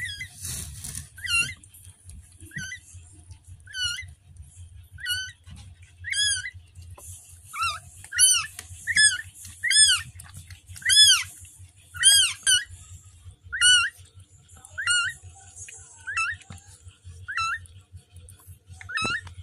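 Newborn kittens mewing: a string of short, high-pitched cries, roughly one a second, louder around the middle.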